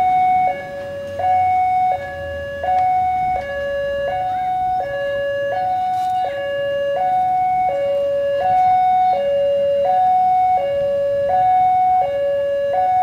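Railway level-crossing warning alarm sounding a steady two-tone electronic signal, high and low tones alternating about every 0.7 s, the warning that the barriers are closed for a train.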